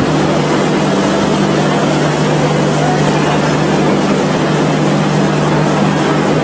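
A vehicle running steadily: a constant low hum under an even, loud hiss that does not change.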